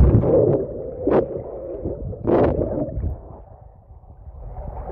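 River water splashing and sloshing, with two louder surges about a second and two and a half seconds in, over a low rumble.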